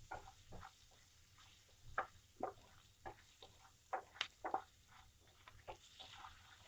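A spoon stirring and scraping in a frying pan as spices and leaves fry in a little oil: faint, irregular scrapes and clicks.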